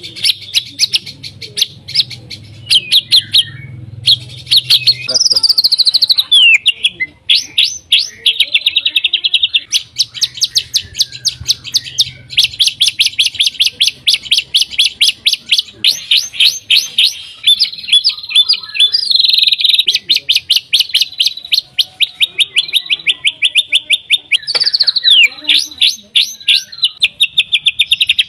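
White-rumped shama (murai batu) singing a loud, fast song: long runs of rapid repeated notes, broken by downward-sliding whistled phrases about five seconds in and again near the end.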